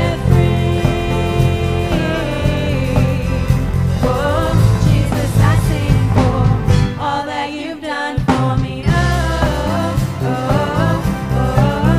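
Live worship band: women singing over electric bass and keyboard. The bass drops out briefly about seven seconds in.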